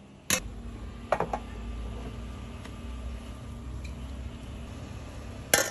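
Snails being handled in a metal pot: a sharp knock, then a few clicks of shells against shells and metal, over a steady low hum. There is a cluster of clicks near the end.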